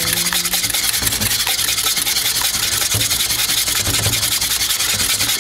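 Wire balloon whisk beating eggs in a stainless steel bowl, its wires scraping and rattling against the metal in rapid, even strokes. It stops abruptly at the end.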